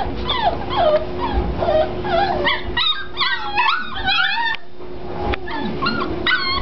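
A litter of five-week-old springer spaniel puppies whining and yipping, several at once, in many short high calls that rise and fall, over a steady low hum.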